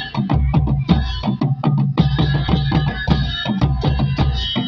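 Nepali baja ensemble playing: leather-headed laced drums beaten with curved sticks in a fast, even rhythm, with a pair of hand cymbals (jhyali) clashing along.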